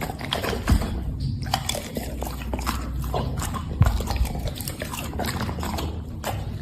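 Wet smacking and clicking of an animal eating, with two low thumps, one just under a second in and one nearly four seconds in.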